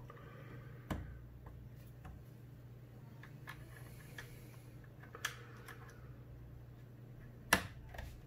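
Plastic retaining clips of an MSI GE75 laptop's bottom cover popping loose as plastic pry tools work along the seam: a few sharp clicks, the loudest about three-quarters of the way through, with fainter ticks between and a low steady hum underneath.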